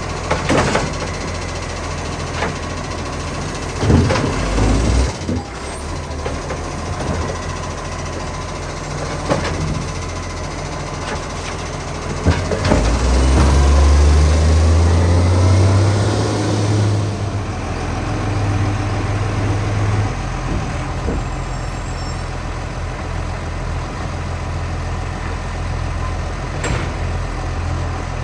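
Side-loader garbage truck's engine running with a huge exhaust leak, revving up louder and deeper for several seconds in the middle, with a few sharp knocks and bangs around it.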